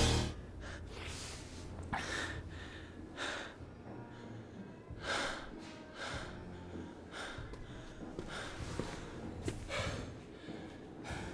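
A man breathing hard and gasping, out of breath after a fistfight, with roughly one loud breath a second.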